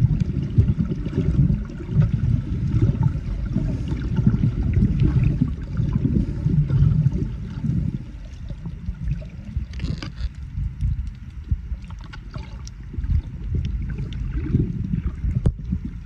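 Muffled, uneven underwater rushing and sloshing of water around a camera held by a swimming snorkeler, with scattered faint clicks. It eases off about halfway through.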